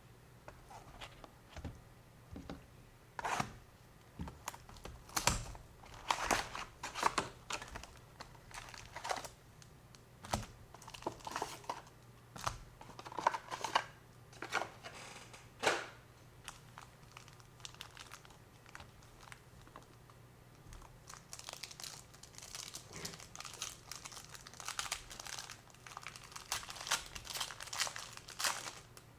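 Plastic wrapping on sealed trading card boxes and packs being torn open and crinkled by hand, in irregular crackles that grow dense over the last several seconds.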